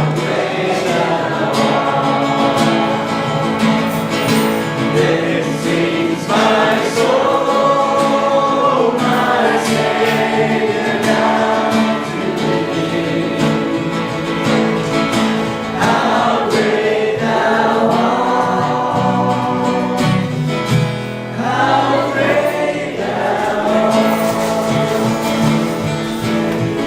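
A group of voices singing a worship song, accompanied by instruments including guitar.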